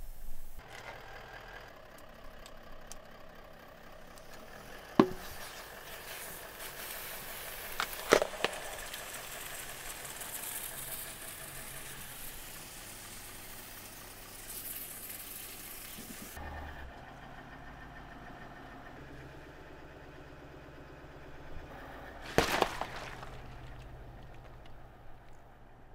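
Car engine idling low and steady as the car rolls slowly over objects, with a sharp crack about five seconds in and a double crack about eight seconds in. The loudest sound is a cluster of cracks and crunches near the end as a watermelon bursts under the tyre.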